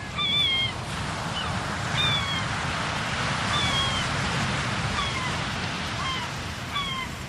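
Recorded seaside sound effect played through the stage speakers: the steady wash of surf with seagulls giving short falling cries every second or so.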